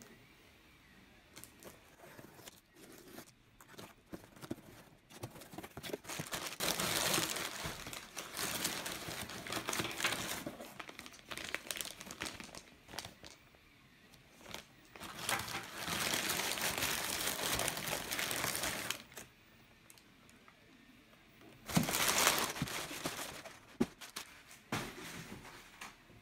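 Crumpled paper packing and plastic bags crinkling and rustling as a cardboard parcel is unpacked by hand, in three loud bursts after a few quieter seconds of handling.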